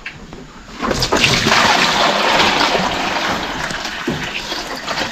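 Water pouring and splashing, starting suddenly about a second in and slowly fading over about four seconds.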